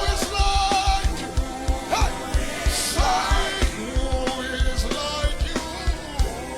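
Live gospel worship music: a band playing over a steady kick-drum beat with held chords, and voices singing over it.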